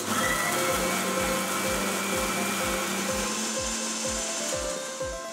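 Electric mixer grinder running with its steel jar, grinding a wet coconut and spice paste: a loud, steady whirring with a motor hum that starts suddenly and stops near the end.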